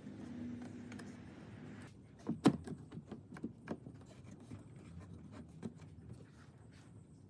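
A pine board shifted on a wooden table, then a quick-release bar clamp set on the wood and tightened: a string of sharp clicks and knocks, the loudest about two and a half seconds in.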